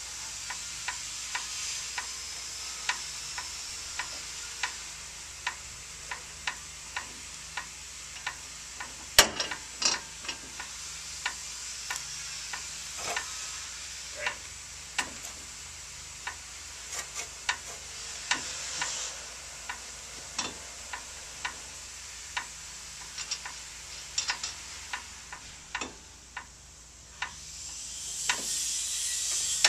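Pneumatic nail guns firing over and over: a steady train of sharp clicks, one or two a second, over a constant hiss. One louder, sharper knock about nine seconds in, and the hiss swells near the end.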